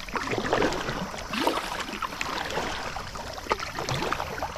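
Kayak paddled through shallow creek water: paddle blades dipping and splashing, water running and dripping, with a few sharper splashes.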